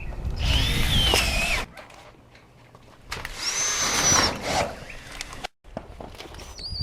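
Cordless drill driving screws into metal roofing panels: two runs of the motor, each a little over a second, with a whine that rises and falls as the screw goes in.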